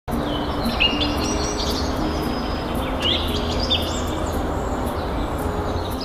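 Birds chirping and calling in short whistled notes, in two clusters about half a second and three seconds in, over a steady rushing background noise.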